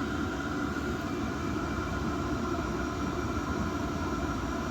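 Diesel air heater running steadily, a continuous drone with a faint, even whine over it.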